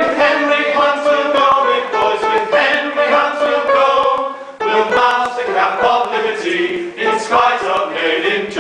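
A group of voices singing together in chorus, with a short break about halfway through before the singing picks up again.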